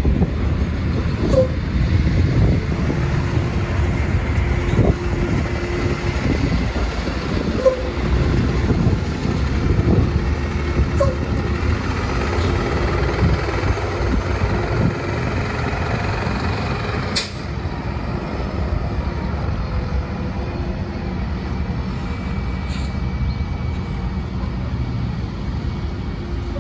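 A Vicinity Classic transit bus's engine running as the bus pulls away and drives off, a continuous low rumble. A sharp click sounds about two-thirds of the way through, after which the sound is slightly quieter.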